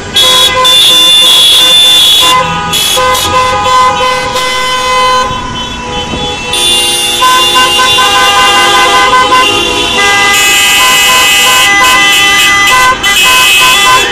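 Many car horns honking at once, loud, long held and overlapping blasts at several different pitches with hardly a break, from a slow convoy of cars sounding their horns in protest.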